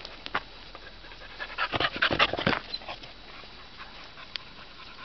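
A dog panting in a quick run of breaths, about a second and a half in, lasting roughly a second, with a few faint clicks around it.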